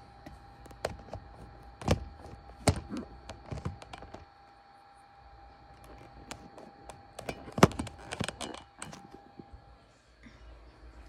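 Knocks and scrapes close to the microphone as the phone is moved or bumped on the windowsill: a few sharp taps in the first four seconds, then a louder cluster of knocks near eight seconds, over a faint steady hum.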